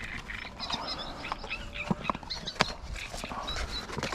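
Handling sounds as a fishing measuring mat is taken out and unrolled on a boat deck: rustling with a few sharp knocks, the loudest about two seconds in and again half a second later. Birds chirp in the background.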